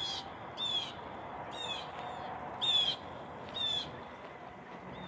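A bird calling repeatedly: short, high calls, each dipping slightly in pitch, about one a second, over a steady background hiss.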